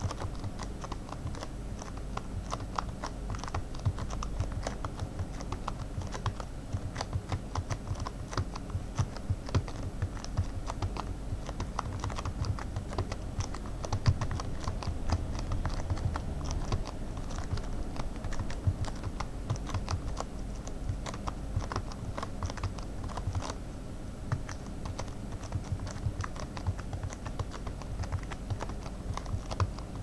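Typing on a Fold-2000 flexible keyboard, whose rubber-dome membrane keys are sealed inside a soft plastic bag: a fast, uneven, unbroken stream of keystrokes.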